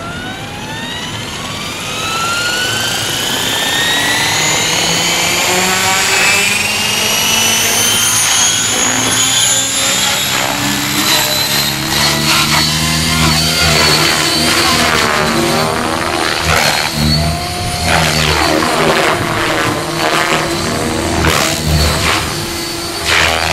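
Align T-REX 700E electric RC helicopter spooling up: the whine of the motor meshing with its CNC M1 main drive gear climbs steadily in pitch over the first ten seconds or so, along with the rotor blades. It then holds at a high, steady whine as the helicopter flies, with the rotor noise swelling and fading in pulses as it manoeuvres.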